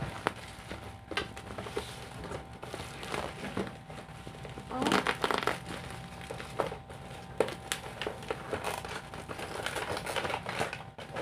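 Plastic bubble wrap crinkling and crackling as it is handled and pulled off a package, with many small scattered crackles. A louder, denser stretch of rustling comes about five seconds in.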